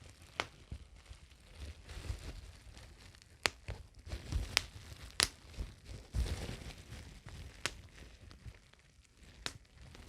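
Bubble wrap crinkling close up, with sharp single pops now and then as bubbles burst, about six in all.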